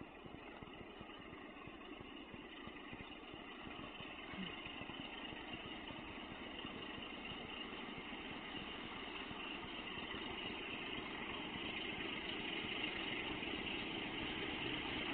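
A train approaching along the line, its engine and rumble growing steadily louder.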